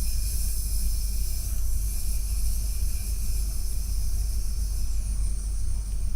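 A person making one long, steady 'sss' sound on a slow exhale, as a meditative breathing-and-sound exercise; the hiss eases slightly after about five seconds and stops near the end. A steady low rumble runs underneath.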